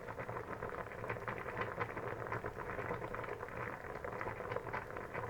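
Water boiling in a pot: a steady, dense bubbling of many small pops.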